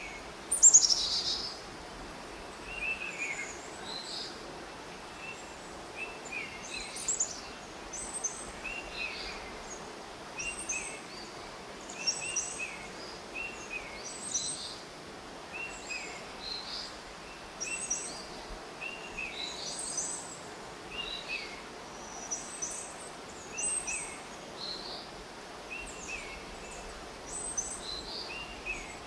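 Birds calling: short falling chirps repeating about once a second, with higher notes above them, over a steady background hiss. The loudest is a high falling call a little under a second in.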